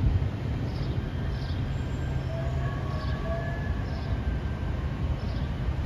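Metro light-rail train running along street track, a steady low rumble of wheels and motors with a faint whine for about a second midway.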